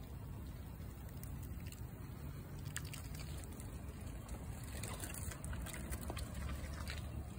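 A low steady outdoor rumble, with faint rustling and light scratchy clicks from about four and a half seconds in, as squirrels scramble over bark and through leafy branches.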